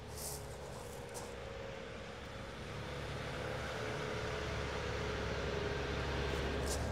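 A motor engine droning steadily and growing louder over several seconds, with its pitch sinking slightly. A few short sharp clicks come near the start and again near the end.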